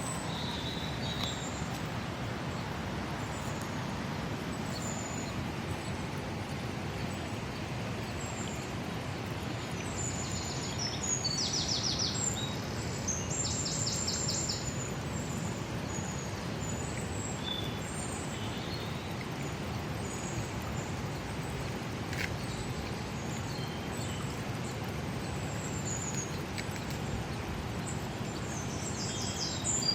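Birds chirping with short, high calls scattered throughout, and fast trills about eleven seconds in, again a couple of seconds later, and near the end, over a steady rushing background noise.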